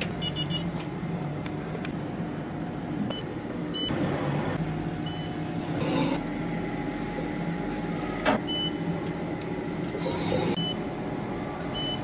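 CK6160Q CNC wheel repair lathe switched on and humming steadily, with short electronic beeps from its controls as buttons are pressed: a quick run of beeps at the start and more single beeps scattered through. A single sharp click about eight seconds in.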